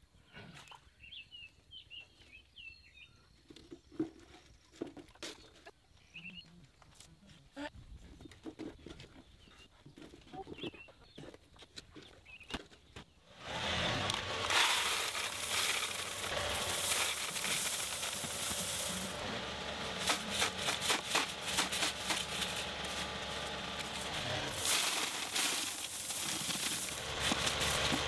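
Faint handling clicks with a few bird chirps, then, about thirteen seconds in, a John Deere 2038R compact tractor's diesel engine running steadily, with loose gravel rattling and scraping as it is spread over the drain pipe.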